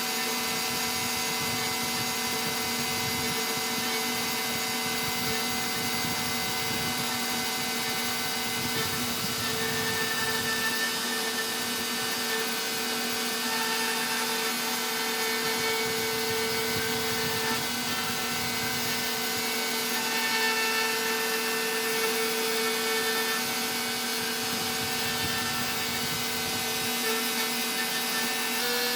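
CNC router spindle on a Stepcraft M1000 running with a steady whine as a V-bit carves wood, with a slight wavering in the higher tones as the cut changes.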